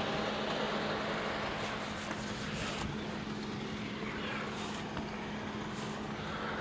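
Steady low engine hum from a vehicle on the road, with outdoor background noise and a few faint rustles.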